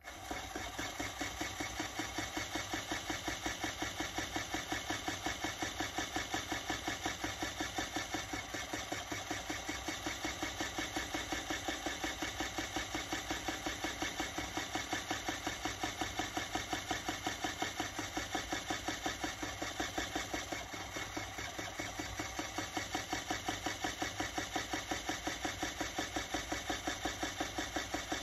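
Electric Eel Wheel 6.0 electric spinning wheel running, its motor driving the flyer round with no fibre being spun. It starts abruptly and runs steadily with a fast, even pulse, easing a little about twenty seconds in before picking back up.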